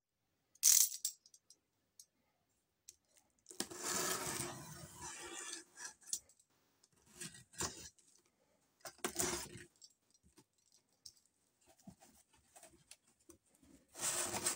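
Cardboard box handled by hand: scattered rustles, scrapes and clicks of cardboard, ending in a louder scraping rustle as the box's front flaps are pulled open.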